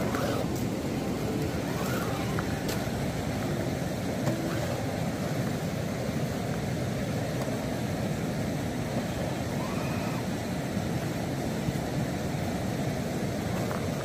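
Steady rushing noise, with a few brief rising-and-falling whines from the electric motors of RC scale crawlers as they climb over rock: once right at the start, again about two seconds in, and around ten seconds in.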